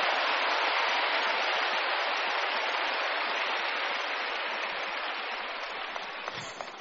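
A large congregation applauding, the clapping slowly dying away over the last few seconds, with a few last single claps near the end.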